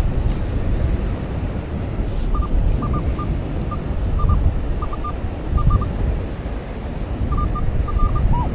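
Wind rumbling on the microphone over ocean surf, with short high beeps, often in pairs, from a Minelab Manticore metal detector sounding on targets as it sweeps.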